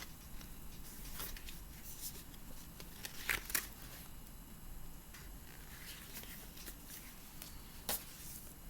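Pages of a small paperback children's book being flipped and handled: a few light paper rustles and flicks, the loudest about three and a half seconds in.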